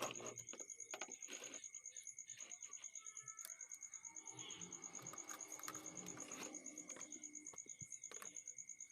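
A cricket chirping steadily in a fast, even, high-pitched pulse, with scattered light clicks and taps over it.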